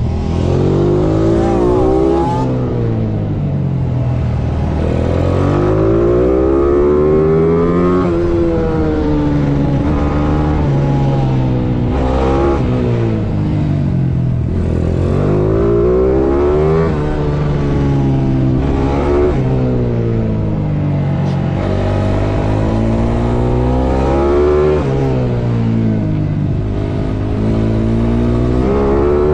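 Small racing minibike engine heard from on board while ridden on a track, its pitch repeatedly climbing as it revs out and dropping back, with the rising and falling pattern repeating every few seconds.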